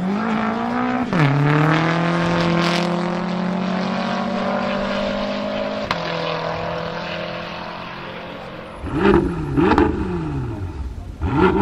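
BMW M5 F10's twin-turbo V8 at full throttle, climbing in pitch with a sharp upshift about a second in, then pulling steadily and fading as the car moves away. Near the end, an M5 F10's V8 is revved in three short blips.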